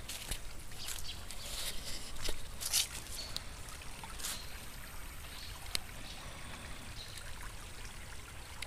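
Water trickling over stones in a small rocky brook, a steady light rush, with scattered short crackles on top, loudest about two to three seconds in.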